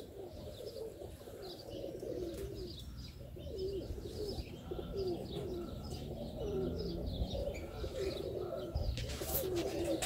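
Pigeons cooing over and over in short low calls, with small birds chirping higher up.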